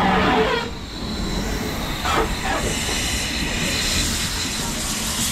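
BR Standard Class 9F steam locomotive 92203 'Black Prince' passing beneath, with steam hissing that grows stronger from about three seconds in. A steady low tone stops within the first half second.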